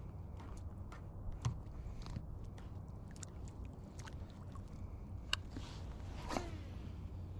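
Light clicks and taps from handling fishing gear in a plastic folding kayak, with two sharper knocks and a short creak near the end, over a low steady rumble.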